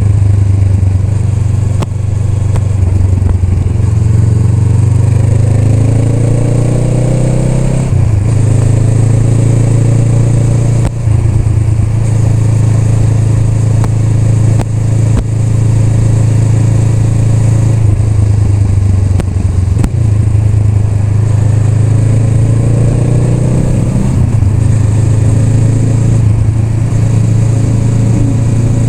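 Honda Rebel 500's parallel-twin engine running under way, rising in pitch twice as the motorcycle accelerates, with a brief drop about a third of the way in and steady running between.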